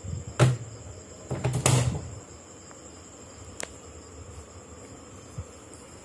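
Front-loading washing machine door being handled. There is a sharp knock about half a second in and a cluster of knocks around a second and a half in, then a single click later. A faint steady high-pitched tone runs throughout.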